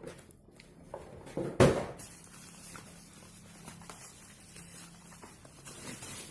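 Handling noise as a keyboard is lifted out of its packaging box: soft rustles and light knocks, with one louder rustle about one and a half seconds in, over a faint steady hum.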